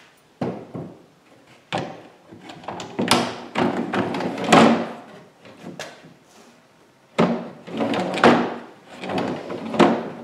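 Wooden drawer on inexpensive metal drawer slides being fitted and run in and out several times, with sliding rattles and sharp knocks as it bumps home.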